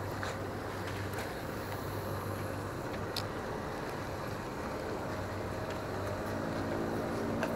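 Steady outdoor background noise with a low hum; an engine-like drone comes in over the last couple of seconds, and a few light clicks sound along the way.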